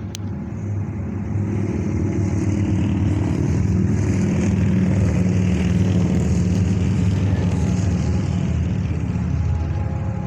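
Diesel freight locomotive leading a Norfolk Southern train, its engine drone growing louder as it approaches and passes, with a hiss of wheel and rail noise above it.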